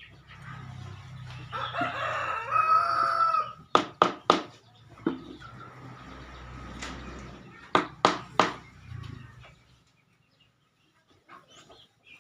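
A rooster crows once, a single drawn-out call of about two seconds, followed by a series of sharp knocks: three in quick succession, one a few seconds later, then two more.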